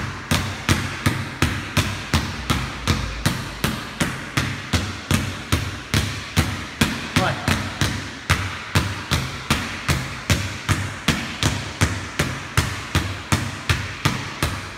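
Two basketballs dribbled together on a wooden floor: a steady, even rhythm of sharp bounces.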